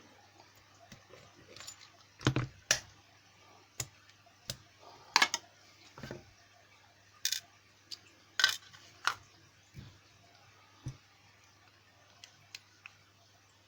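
Sharp metallic clicks and taps of a Lockwood 356 padlock being disassembled by hand, about a dozen at irregular intervals, the loudest a little over two seconds in, about five seconds in and about eight and a half seconds in.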